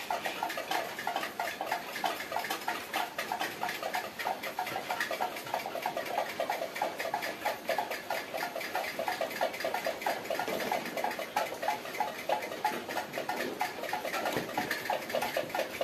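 Coloured pencil scratching on paper in quick back-and-forth strokes, a fast even ticking of about five or six strokes a second.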